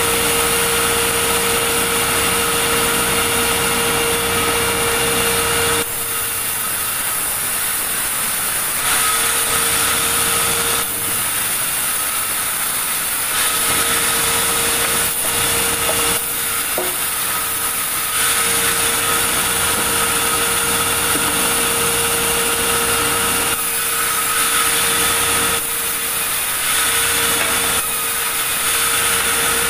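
Sawmill saw running and cutting through large timber, a steady mechanical whine with the blade's noise in the wood. The sound drops back to a slightly quieter, duller note for a few seconds at a time several times over, as the cut eases and resumes.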